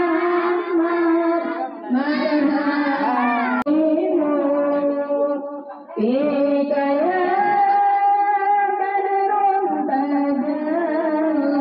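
A group of girls and women singing Islamic devotional praise songs for the Prophet's birthday together. They hold long notes with sliding, ornamented pitch changes, with a short break about six seconds in.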